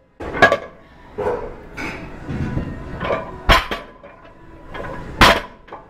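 Metal clanking of 25-pound weight plates and a barbell being handled and loaded: a series of sharp knocks, the two loudest about three and a half and five seconds in.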